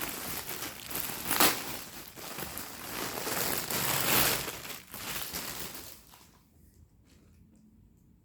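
Package wrapping being crinkled, crushed and torn open by hand, dense rustling with a couple of louder rips, which stops about six seconds in.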